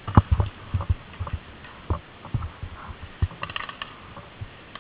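Irregular low thumps and knocks from a camera being jostled as it is carried, with a quick run of faint clicks about three and a half seconds in.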